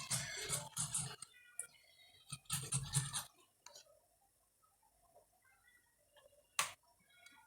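Ripe tomatoes being grated by hand on a grater: quick scraping strokes for about a second, then another run of strokes a couple of seconds later, followed by small clicks and one sharp knock near the end.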